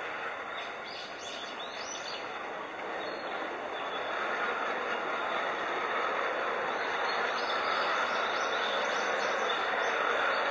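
5-inch gauge ride-on miniature train running along the track, its rolling noise growing steadily louder as it approaches. Small birds chirp above it.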